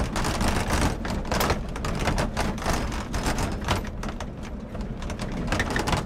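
Rattling and knocking in the canopy-covered load bed of a moving pickup truck, with many irregular clatters over the truck's steady low rumble as it jolts along a rough road.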